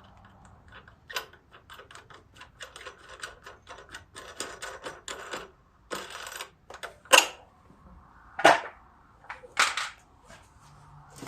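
Clicks and rattles of an air filter and its plastic and metal parts being handled as they are taken off a Kohler riding-mower engine. There is a run of quick clicks in the middle and a few louder clacks in the second half.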